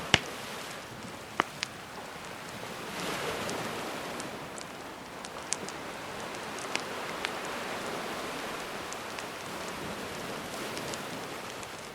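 Campfire crackling with scattered sharp pops over gentle sea waves washing in; the wash swells about three seconds in and again in the second half.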